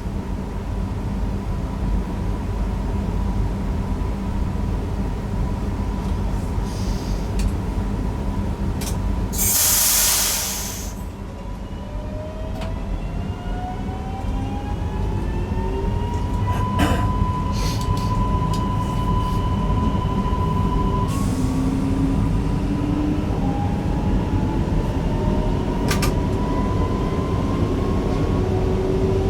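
Newag Impuls EN63 electric multiple unit heard from the driver's cab, a steady running rumble underneath. A short loud hiss comes about ten seconds in. After it the traction drive's whine rises in pitch in steps as the train picks up speed.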